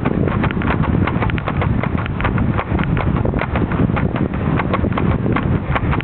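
Bicycle riding up a rough paved road: a fast, irregular rattle of clicks and knocks from the bike and its camera mount shaking over the pavement, over a steady low rumble of tyres and wind.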